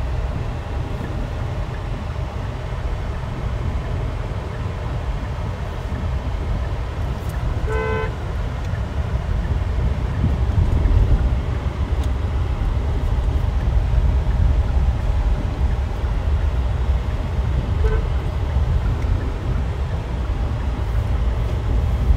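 Car driving on the road, a steady low engine and road rumble as heard from inside the cabin. A car horn toots briefly about eight seconds in, and a fainter short beep comes later.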